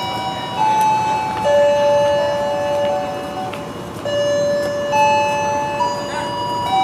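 Railway station loudspeaker chime: an electronic melody of long held notes, sometimes two at once, stepping to a new pitch every one to two seconds.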